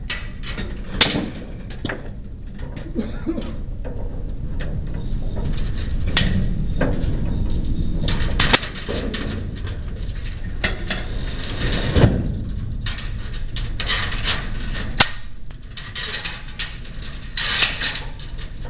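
Scattered knocks, taps and clicks of repair work on a large door, the loudest thump about twelve seconds in, over a steady low rumble.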